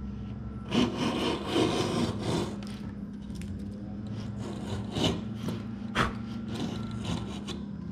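Hand router plane skimming the floor of a dado in a softwood board down to its final depth, its blade shaving the wood in short scraping strokes. There is a longer run of strokes about a second in, then several single strokes.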